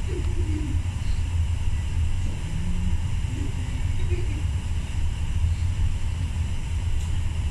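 Steady low rumble of a vertical wind tunnel's airflow and fans running continuously, holding a flyer aloft.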